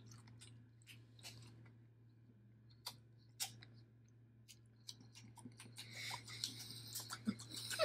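Faint mouth sounds of hard fruit candies being sucked and crunched: scattered wet clicks, growing into a denser run of crunching near the end, over a steady low hum.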